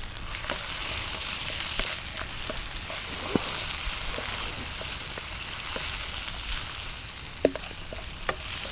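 Onions and whole spices frying in a pan, a steady sizzle with a few sharp pops and ticks scattered through.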